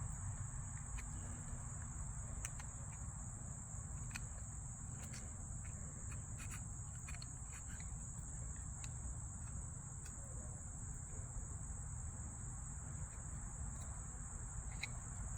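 Crickets trilling steadily in the background, one constant high-pitched chirr, over a low rumble, with a few faint clicks scattered through.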